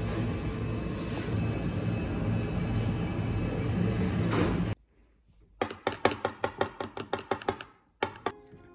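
Steady murmur of bakery shop ambience, cut off suddenly just before halfway. Then the crisp crust of a freshly baked baguette crackling, a rapid run of sharp crackles for about two seconds and one more short burst near the end.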